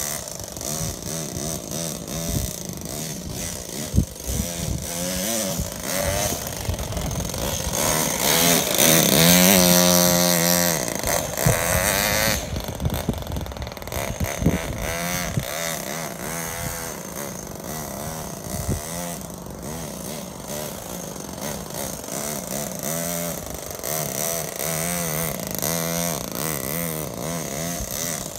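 Toyan four-stroke model engine in an RC truck, running and revving up and down with the throttle as the truck drives. It is loudest around nine to eleven seconds in. There is one sharp knock about four seconds in.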